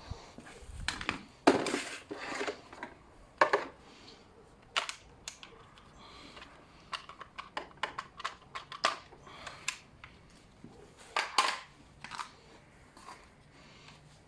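Irregular sharp clicks and clacks of hard plastic and metal parts, loudest about a second and a half in and again near eleven seconds: a Kärcher pressure washer hose being handled and fitted onto a quick-connect spray gun's adapter.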